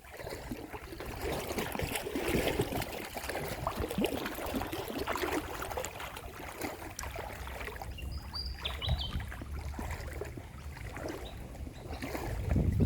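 Creek water sloshing and trickling with irregular small splashes, as of someone wading through it, over a steady low rumble.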